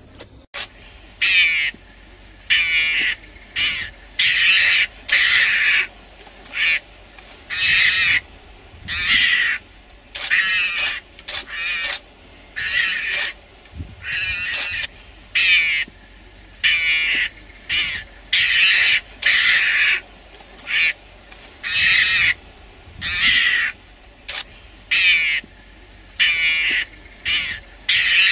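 An animal's harsh, high calls, repeated about once a second, each a short burst of a fraction of a second, sometimes two close together.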